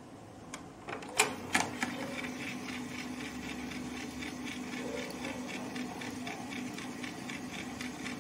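Beocord 2000 De Luxe reel-to-reel tape recorder: a few sharp clicks as its controls and transport engage in the first two seconds, the loudest about a second in, then the machine running with a steady hum and fast, even mechanical ticking.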